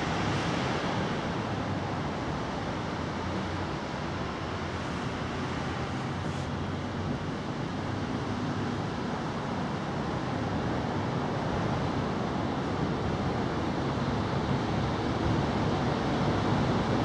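Steady rushing background noise with no distinct events, growing a little louder near the end.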